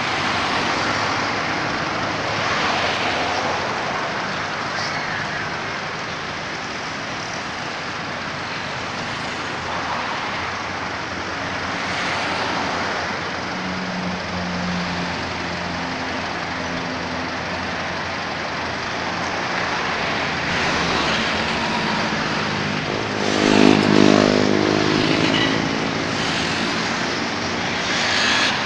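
Steady road traffic noise from a busy road and overpass, with one louder engine passing by about two-thirds of the way through.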